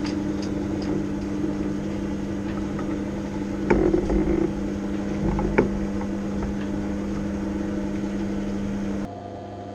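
Catalina 30 sailboat's inboard engine running steadily at a low idle, with a couple of brief knocks about halfway through. Near the end the sound drops to a quieter steady hum.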